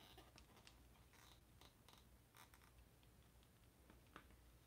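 Near silence: faint scattered clicks and rustles of hands tying a loop in braided fishing line on a planer board, over a low steady hum.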